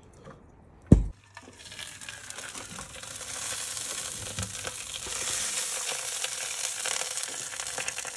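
A single thump about a second in, then meat fat sizzling and crackling steadily on a hot kamado grill grate under a glazed lamb shoulder.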